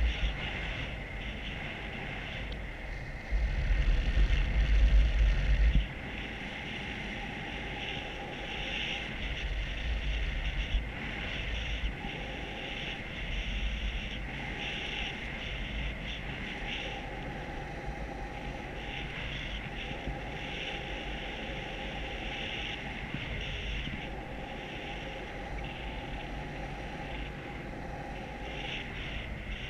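Rushing wind buffeting the microphone in paraglider flight, with a louder, heavier gust from about three seconds in that drops back after a couple of seconds.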